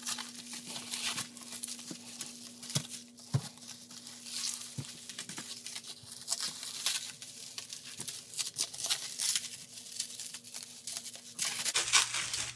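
Bubble wrap crinkling and rustling in irregular crackles as hands unwrap and turn a laptop. A faint steady hum sits underneath and stops near the end.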